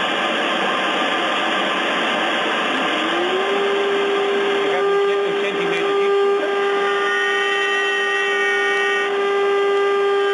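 CNC milling machine running with its dust extraction: a steady rushing hiss, with a whine that rises in pitch about three seconds in and then holds. From about five seconds the cutter ramps into the wooden block, adding a higher whine of several steady tones and faint ticks.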